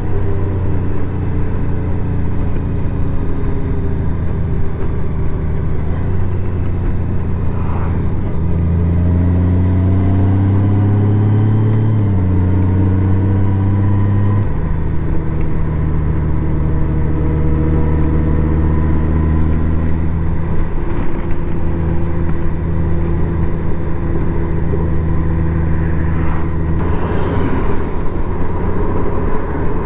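Honda Gold Wing motorcycle engine running under way. Partway through, its pitch climbs for a few seconds as it accelerates, then steps down with a gear change and runs on steadily.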